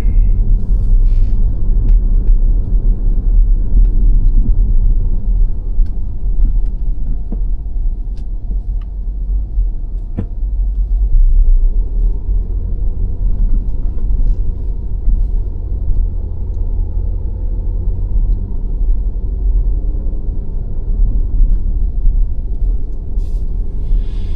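Steady low rumble of a car being driven, road and engine noise heard from inside the moving car, with a few faint clicks.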